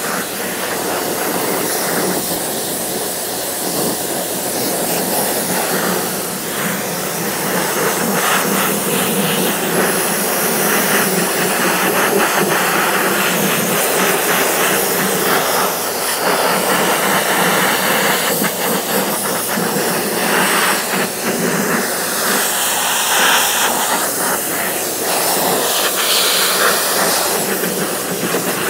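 EGO HPW2000E cordless battery pressure washer spraying a high-pressure fan jet of water onto a deck: a loud, continuous hiss that changes in tone now and then.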